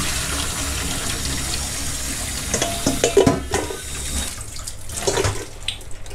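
Water running from a tap and splashing into a stainless steel sink as raw shrimp are rinsed in a plastic colander, with a few knocks and clatters from the colander and bowl being handled in the second half.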